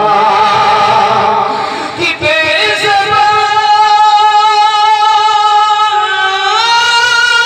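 A man singing a naat through a public-address system, drawn out in long held notes with a slight waver. The sound breaks briefly about two seconds in; after that he holds one long note, which steps up in pitch near the end.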